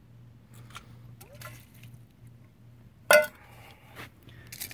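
A metal saucepan set down on concrete, giving one short, sharp clank that rings briefly about three seconds in, with a few faint handling clicks before it.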